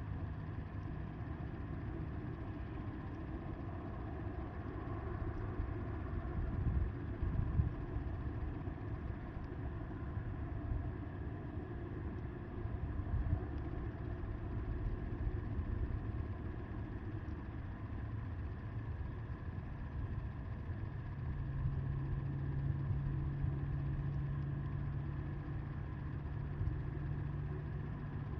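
Wind rumbling and buffeting on the microphone in gusts, with a faint steady low hum coming and going underneath.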